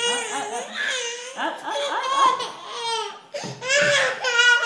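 A baby's high-pitched voice: a run of drawn-out vocal sounds that glide up and down in pitch.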